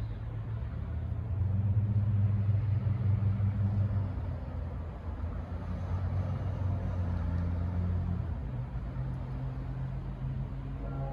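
Diesel-electric locomotive engine running with a low, steady drone, loudest for a couple of seconds about two seconds in, its pitch stepping down about eight seconds in.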